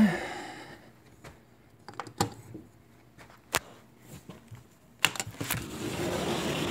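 A few sharp, scattered clicks and knocks over near-quiet. About five seconds in, the steady rushing of a waterfall rises and holds.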